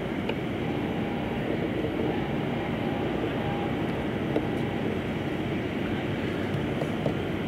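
Steady low rumble of outdoor ambient noise.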